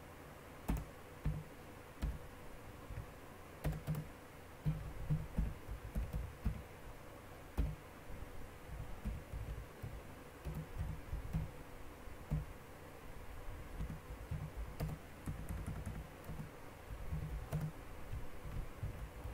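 Typing on a computer keyboard: irregular keystrokes in short runs with brief pauses between them.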